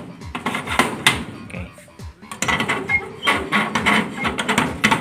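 Steel sliding barrel bolt on an iron door worked back and forth by hand, giving a run of irregular metal clacks and scrapes, quieter for a moment about two seconds in. The bolt has just been oiled with used engine oil and no longer slides as stiffly.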